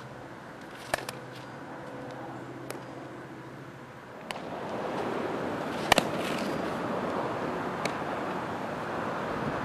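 Sharp knocks of baseball infield practice, bat and glove contacts with the ball: about six of them, the loudest near six seconds, over a steady rushing outdoor noise that grows louder about four seconds in.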